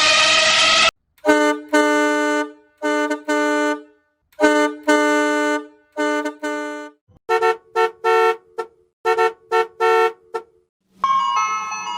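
Vehicle horn honking in a series of blasts of varying length, followed by a higher-pitched horn giving quick short toots. A loud engine-like sound cuts off in the first second, and an ice cream truck jingle begins about eleven seconds in.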